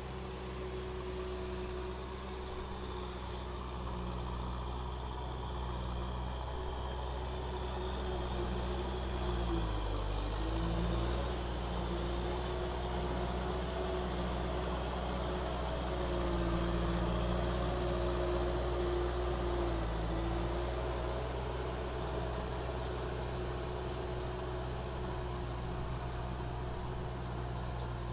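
Diesel engine of a Kubota M6040SU tractor running steadily while it pulls a rotary tiller through mud. The engine note sags briefly twice, about ten and about twenty seconds in, then recovers.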